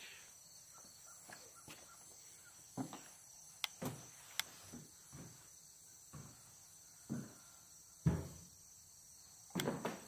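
Steady high-pitched insect chorus, with scattered soft thumps and a few sharp clicks.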